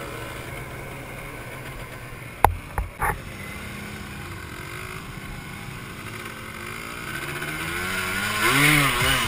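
Quad bike engine running at low revs, with a few sharp knocks about two and a half seconds in. From about seven seconds the engine revs up and down, getting louder as the quad drives into muddy water.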